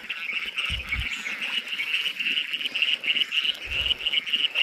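Steady night chorus of calling frogs, a fast, pulsing trill that goes on without a break, with two brief low thuds, about a second in and near the end.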